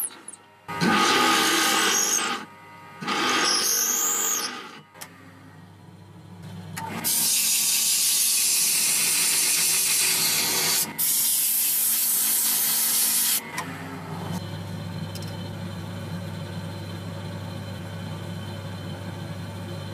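Wood lathe drilling into the end of a turned wooden handle with a long bit fed from the tailstock: two loud grinding bursts, the second with a squeal from the bit. Then a steady hiss lasting about six seconds, with a short break in the middle, while something is held against the spinning handle at its copper ferrule. After that a steady low motor hum.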